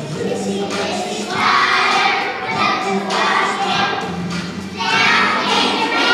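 A group of young children singing together, with two louder surges, about a second and a half in and again about five seconds in.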